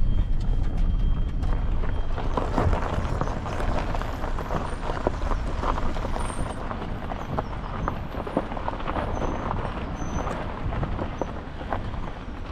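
Car driving along a road: a steady low rumble of engine and road noise, with many small knocks and rattles from about two seconds in.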